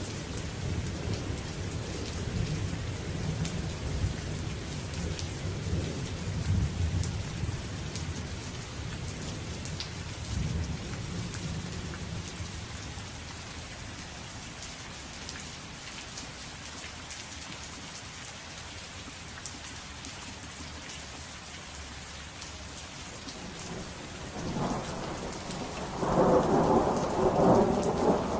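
Steady rain falling with thunder. A low rumble of thunder fades away over the first ten seconds or so, leaving the rain's even patter. Near the end a new, louder thunder roll swells up.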